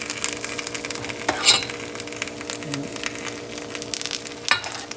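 Hot fried fish sizzling and crackling as spoonfuls of tomato-chili sauce are poured over it, under a steady low hum. A metal ladle clinks sharply twice, about a second and a half in and near the end.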